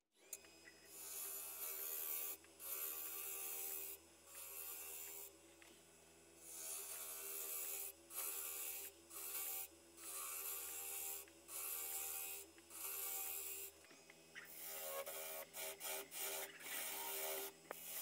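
A wood lathe starts up and runs with a steady motor hum while a gouge cuts the spinning English walnut blank. Each cut is a shaving hiss lasting a second or two, with short gaps between. About fourteen seconds in the cuts become shorter and come in quick succession.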